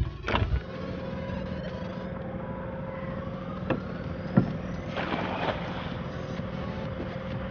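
Boat engine running at a steady speed with an even, unchanging drone. A couple of short knocks come in about halfway through.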